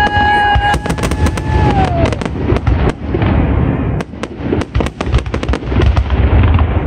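Fireworks display: aerial shells bursting in rapid, overlapping bangs and crackles over a continuous low rumble. A steady whistling tone slides down in pitch and ends about two seconds in.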